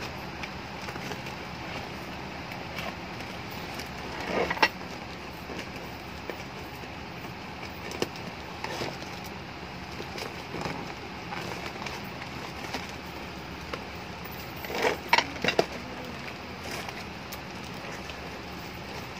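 A cardboard shipping box wrapped in clear packing tape being handled and rubbed by hand: soft rustling and crinkling, with short louder crackles about four seconds in and a cluster of them around fifteen seconds in, over steady background noise.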